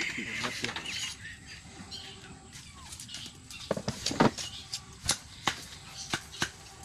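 A run of sharp, irregular knocks, starting a little past halfway, the loudest pair about four seconds in, then single knocks about every half second. Faint voices can be heard early on.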